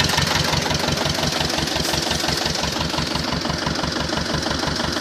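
T-25 tractor's two-cylinder air-cooled diesel engine running steadily at idle with an even, fast beat, just after a repair.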